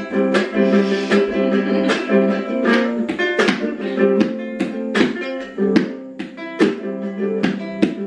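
Small acoustic guitar strummed, repeated chords ringing out in a loose rhythm.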